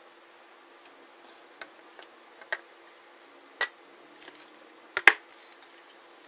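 Hard plastic toy submarine hull and its clip-on propeller engine unit clicking and knocking as they are handled and fitted together: half a dozen scattered sharp clicks, the loudest a quick double knock about five seconds in.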